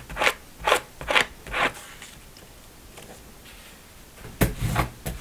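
A squeezed bottle of Elmer's Glue-All squirting glue onto a napkin piece, four short sounds about half a second apart. Near the end, a few quick scrapes and taps as the glued paper pieces are laid together and pressed down on a plastic cutting mat.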